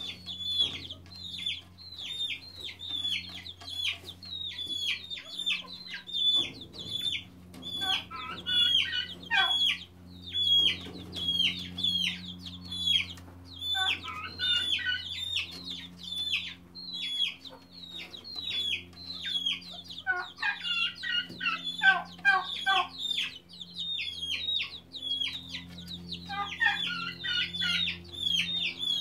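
Young chicks peeping continuously: a steady run of high, downward-slurred peeps, about two to three a second, broken now and then by short bursts of lower, faster chirping. A faint steady low hum runs underneath.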